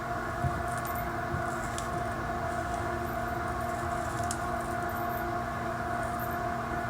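A steady mechanical hum holding several fixed tones, with a few faint light ticks on top.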